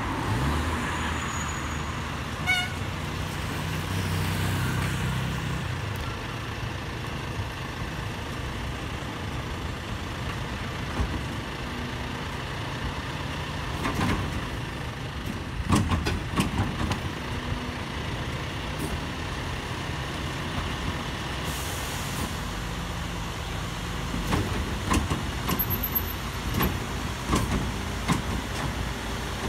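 Rear-end loader garbage truck running at the roadside with traffic passing close by, a steady low engine hum. Around the middle and again near the end come sharp knocks and clunks as a wheelie bin is lifted and tipped by the rear loader.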